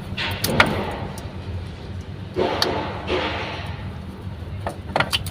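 Sharp clicks and knocks of parts and tools being handled and pried during repair work, with two scraping stretches, over a steady low hum.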